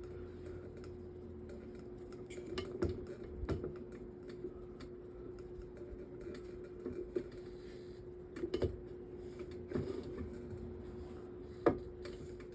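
Scattered small clicks and taps of hands working at a metal table fan's motor shaft, pulling hair off it, over a steady low hum.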